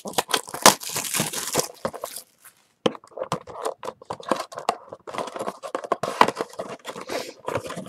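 Plastic shrink wrap torn and crinkled off a cardboard trading-card box, a short pause, then the box handled and its lid flap opened with scattered rustles and light knocks.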